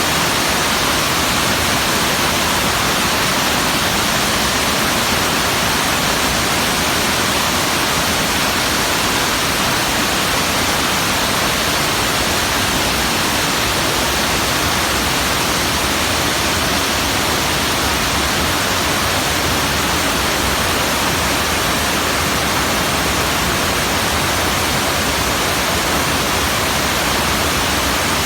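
Fukiware Falls' water pouring over the rock ledges, a loud, steady rushing without change.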